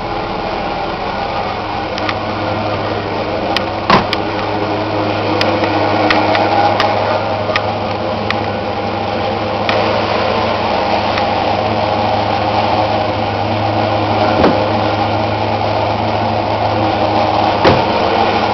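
A Rambler car's engine idling steadily, with a few brief clicks over it.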